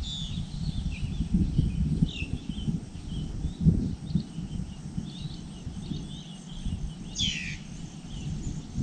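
Small birds chirping in short, scattered calls, with a louder call that sweeps downward in pitch about seven seconds in, over a low, uneven rumble.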